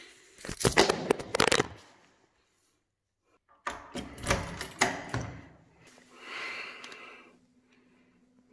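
A bunch of keys jingling, then a key rattling and clicking as it turns in a door lock, in two bursts of metallic clicks with a short pause between. A softer rustle follows, and a faint steady hum comes in near the end.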